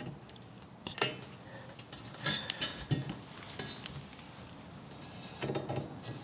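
Scattered light clinks and knocks, a handful of sharp separate contacts, as a rock slider rail is shifted into position against the car body.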